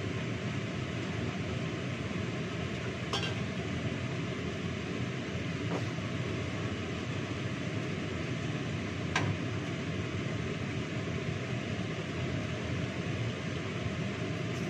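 Steady rushing kitchen noise while pork steak cooks, broken by three brief clinks of metal kitchenware about three, six and nine seconds in, the last the loudest.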